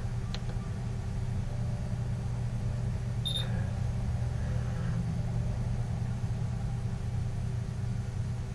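Steady low hum of room tone, with one short high blip about three seconds in.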